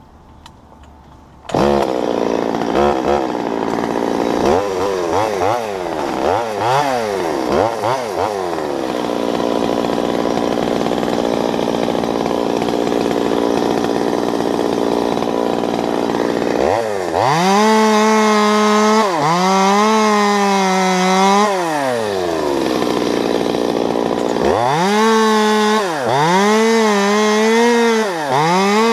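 Two-stroke top-handle chainsaw starting up about a second and a half in, blipped a few times, then idling. About halfway it revs up and cuts into a walnut limb, its pitch sagging each time the chain bites under load; it drops back to idle briefly, then revs and cuts again near the end.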